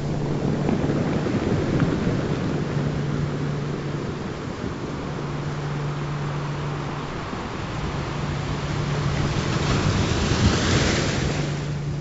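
Recorded ocean surf washing steadily, swelling into a bigger wave near the end, with a low steady tone that comes and goes every couple of seconds underneath.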